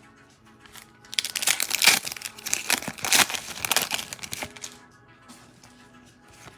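Trading card pack wrapper crinkling for about three seconds, starting about a second in, as it is handled.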